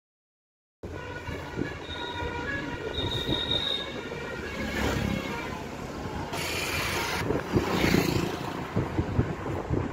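Road rumble and wind noise from a car driving along a highway. After about a second of silence, a high steady tone sounds for about two seconds, and two louder rushes of noise come near the end.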